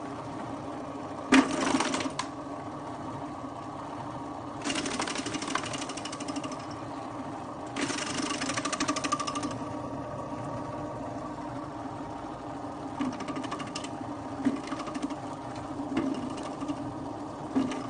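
Electric vegetable slicer's motor running with a steady hum. Over it come three bursts of cutting noise, each one to two seconds long, as vegetables such as cabbage are fed into the spinning blade. Then several short knocks follow as smaller pieces go through near the end.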